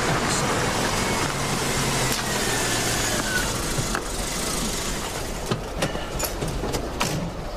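A car engine running with steady road and traffic noise.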